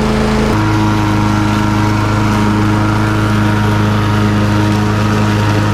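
Small gasoline walk-behind lawnmower engine running steadily. About half a second in, its note changes and then holds, as the blade is engaged and comes up to speed.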